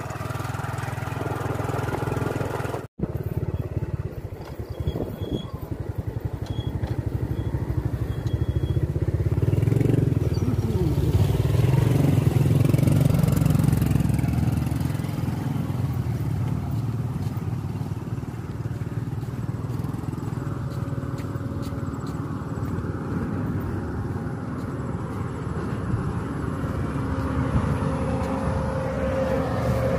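Motorcycle engine running steadily as it rides a muddy, flooded dirt track, getting louder for a few seconds around the middle. The sound cuts out for an instant about three seconds in.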